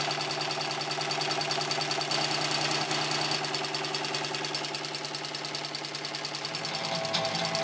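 Embroidery machine stitching small lettering on a shirt sleeve: the needle bar running at high speed in a fast, even rhythm of strokes over a steady motor hum.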